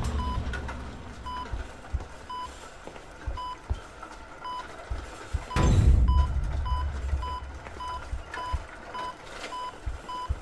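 Heart monitor beeping about once a second. About halfway through a loud low boom sounds, and the beeps quicken to roughly three a second, a racing heart rate.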